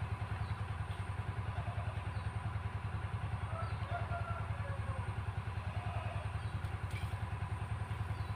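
Diesel engine of an irrigation water pump running steadily with a fast low throb, pumping water to rice fields.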